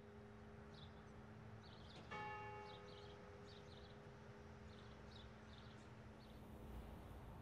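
A single church bell stroke about two seconds in, faint: its higher ringing dies away within about a second while the lower hum of the bell rings on.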